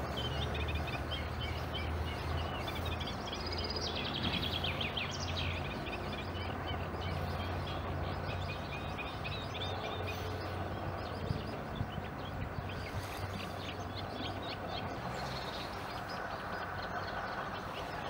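Birds chirping with many short, high calls and a brief fast trill about four seconds in, over a steady low hum.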